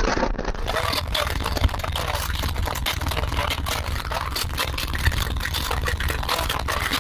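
Very loud deep bass from two 18-inch subwoofers playing inside a Chevy Blazer's cabin: a steady low bass line with crackling noise over it.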